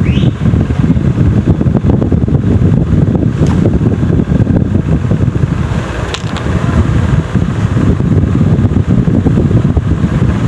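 Loud, steady low rumble of moving air buffeting the phone's microphone, fluttering unevenly, with a couple of faint clicks.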